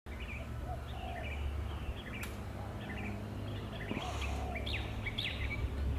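Small birds chirping in short, repeated calls over a steady low rumble of outdoor background noise, with one sharp click about two seconds in.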